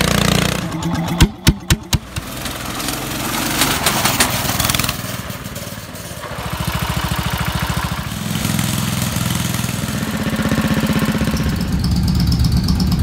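Engine running and revving with an even, rapid firing pulse, and a quick series of sharp pops about a second in.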